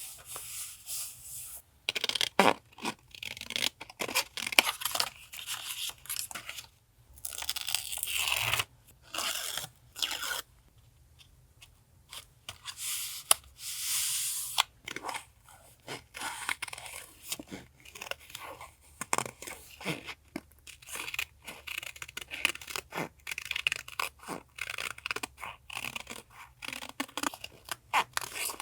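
Vintage collage papers being handled in journal decorating: several drawn-out tearing and rustling strokes of a second or two, with many short crisp paper clicks and taps between them.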